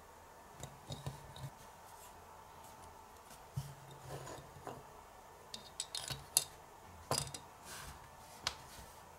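Light clicks and taps of miniature plastic and metal toy kitchen utensils being handled and slotted into a small plastic utensil stand, in scattered bunches, with the sharpest click about two-thirds of the way through.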